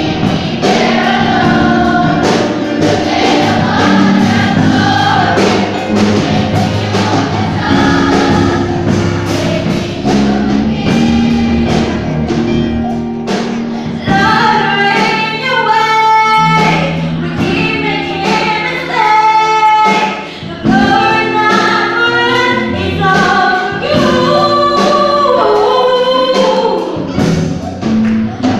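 Children's choir singing a gospel song in harmony over a live band, with regular drum beats.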